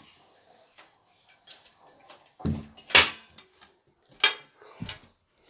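Several sharp knocks and clatters of hard objects being handled, the loudest about three seconds in.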